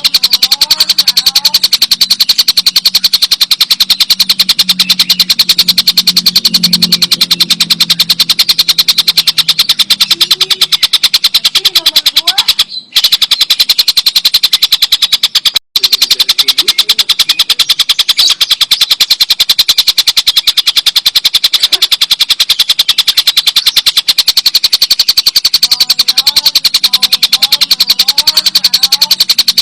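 Tengkek buto kingfisher giving its long, loud chattering call: a continuous fast rattle of many notes a second, with two brief breaks near the middle.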